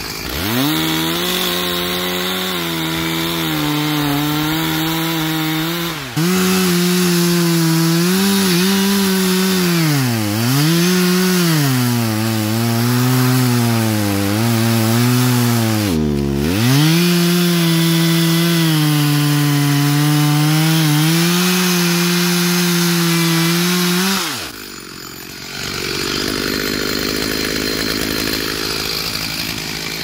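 Stihl MS 462 two-stroke chainsaw at full throttle, cutting into the base of a large spruce being felled. Its pitch sags and recovers several times as the chain loads in the wood, and about 24 seconds in it drops back to idle.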